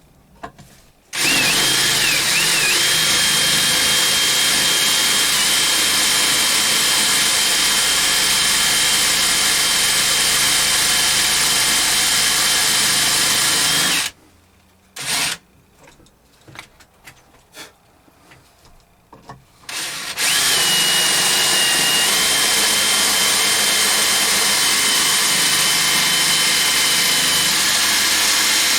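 Electric drill running a number 2 left-hand extractor cutter in reverse against metal, with a steady high whine. It runs for about thirteen seconds, stops for about six seconds with a few small knocks, then starts again about twenty seconds in.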